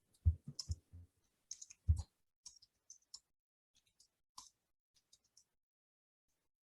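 Computer keyboard keys clicking irregularly: a quick run of keystrokes with a few low knocks in the first two seconds, then scattered single clicks.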